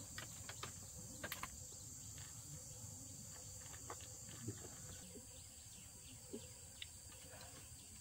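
Steady high-pitched chorus of insects, with a few faint scattered clicks and taps over a low background rush.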